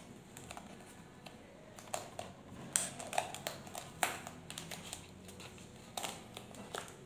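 Irregular light clicks and taps of hands handling wiring connectors and foam padding inside an electric scooter's deck compartment, with a few sharper clicks around three to four seconds in.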